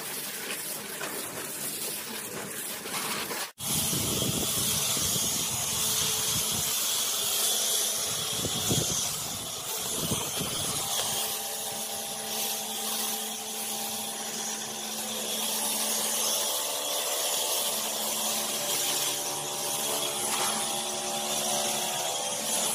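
Pressure washer spraying a car: a steady hiss of the water jet with the hum of the washer's motor and pump, which comes through more clearly in the second half. The sound drops out for a moment about three and a half seconds in.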